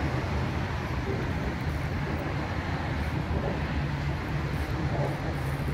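Steady low rumble of road traffic on the elevated highway bridges overhead.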